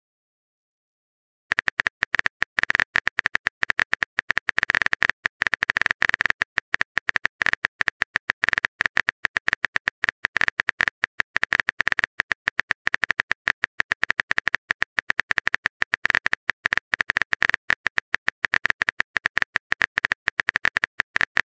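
Simulated phone-keyboard typing sound effect from a texting-story app: a fast, uneven run of short clicks that starts about a second and a half in.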